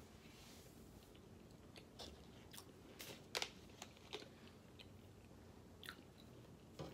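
Faint chewing, broken by a few sharp clicks and crackles of a plastic water bottle as its screw cap is twisted, loudest about three seconds in.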